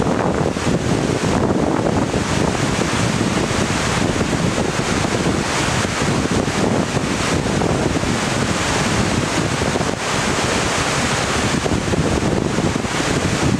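Glacier-fed Carbon River running high, its whitewater rushing over rocks in a loud, steady roar.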